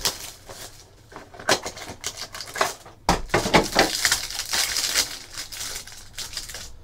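Trading cards and clear plastic card sleeves being handled: a few short scrapes and slides, then a dense stretch of rustling from about three seconds in.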